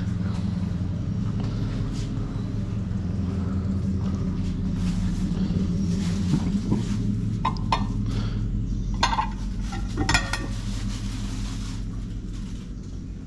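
A steady low hum throughout, with a few light clinks of glass dishes being handled, most of them between about six and ten seconds in.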